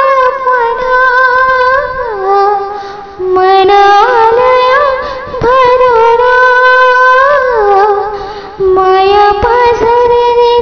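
A woman singing Marathi mangalashtak (wedding blessing verses) in long held notes with wavering ornaments, over musical backing.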